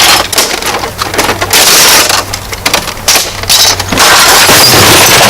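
Loud crushing and breaking noise in about four long bursts, the longest near the end: something hard, likely the TV, is being broken up.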